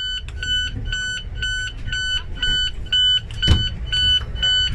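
ICE 4 train door warning beeper sounding a steady string of short, high beeps, about three a second, over the low rumble inside the train. A single knock comes about three and a half seconds in.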